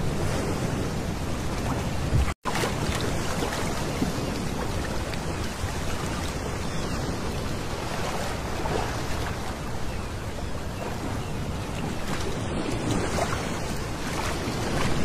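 Small sea waves lapping and washing up a pebble beach, a steady wash of surf. The sound cuts out for a moment about two and a half seconds in.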